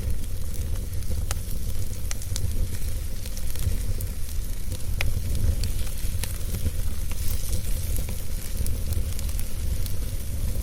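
Wood fire burning in a fireplace: a steady low rumble and hiss, with sharp crackles and pops at irregular intervals.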